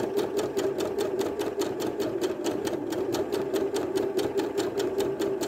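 Bernette domestic sewing machine running steadily during free-motion quilting: a rapid, even rhythm of needle strokes over a steady motor hum.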